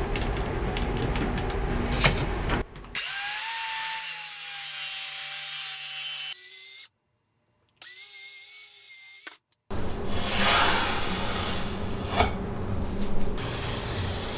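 Power tool cutting wood, in edited segments: rough cutting noise, then a steadier whining tone cut by a brief silence, then rough cutting noise again.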